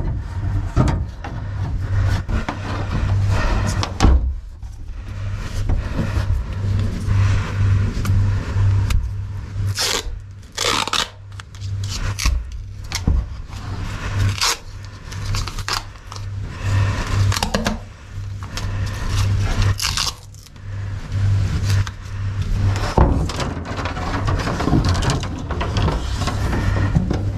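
Duct tape being pulled off the roll in several short rips, among scraping and rustling as a cable is taped to the end of a fish tape, over a steady low hum.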